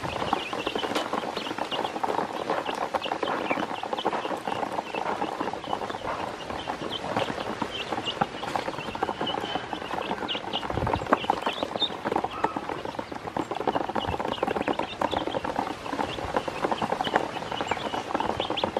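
A group of domestic ducklings peeping continually in a dense chatter of short high chirps. Under the peeping run small splashes and a quick patter of bills and feet in shallow water in a plastic basin.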